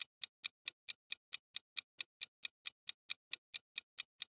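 Clock-ticking sound effect of a quiz countdown timer: short, even ticks, about four and a half a second, counting down the time left to answer.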